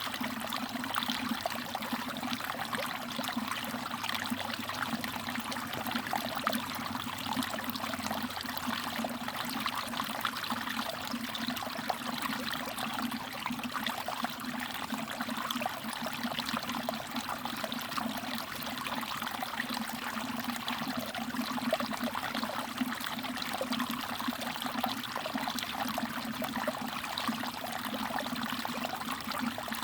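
Mountain stream water trickling and babbling over rocks, a steady flowing sound with many small splashes and drips.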